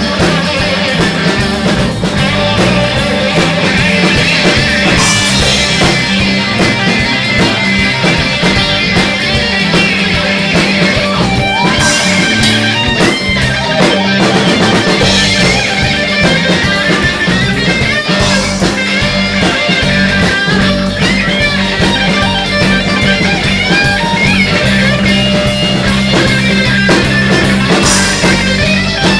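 Live rock band playing an instrumental passage, with electric guitar, bass and a drum kit with cymbal crashes every few seconds.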